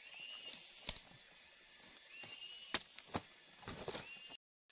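Machete strokes: three sharp knocks, the loudest about two-thirds of the way in, then a short patch of crackling leaves and stems. A chirping call from a forest animal repeats about every two seconds in the background.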